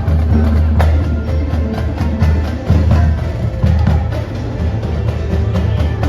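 Music with a heavy, steady bass and a sharp percussive beat.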